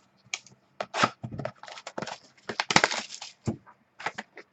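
Trading cards and their foil pack wrapper being handled: an uneven run of crinkling, rustling and sharp clicks as a new pack is torn open and the cards are worked through.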